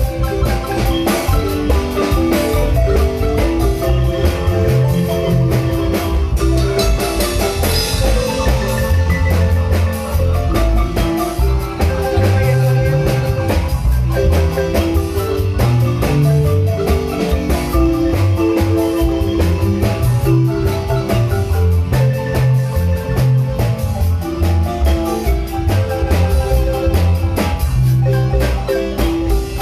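Guatemalan wooden marimba played by several players at once: a busy run of struck wooden notes in a lively tune over a steady low bass part.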